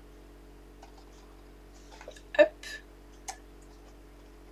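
Hands pressing and handling a paper gift box on a tabletop: a few light clicks and taps, the sharpest about two and a half seconds in, over a faint steady low hum.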